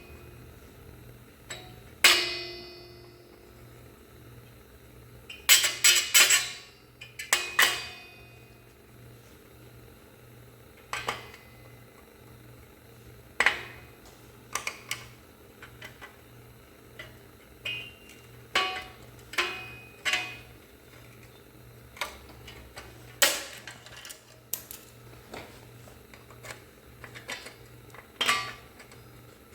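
Ordinary hand tools clinking and clanking against the metal parts of a drum brake as it is taken apart without drum-brake tools: irregular sharp metal knocks, a few ringing briefly, loudest about two seconds in and again around six to eight seconds in. A faint low hum runs underneath.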